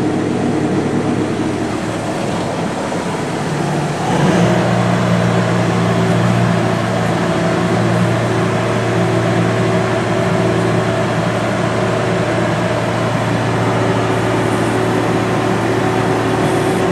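Bobcat S250 skid steer's 75 hp Kubota turbocharged four-cylinder diesel running steadily just after start-up. About four seconds in, the note steps up with a short rising glide and then holds steady.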